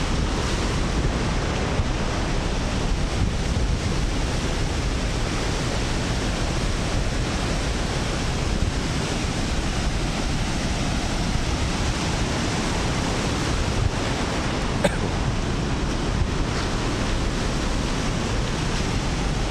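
Heavy ocean surf from the south Java coast, big waves breaking and crashing onto the rocks in a steady wash of noise, with wind buffeting the microphone. A single short click about fifteen seconds in.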